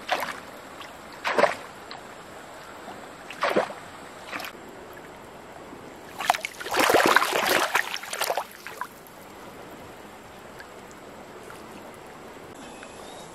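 Catfish thrashing in a shallow muddy pool among fern fronds: a few short splashes, then a longer burst of splashing from about six to nine seconds in.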